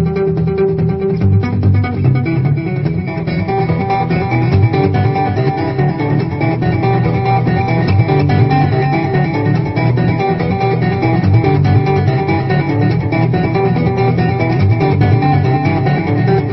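Background music: plucked guitar over a bass line.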